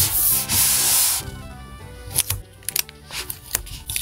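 Palms rubbing across a sheet of printed paper, a dry hiss that stops about a second in, then a few light clicks and taps as the paper is handled, over soft background music.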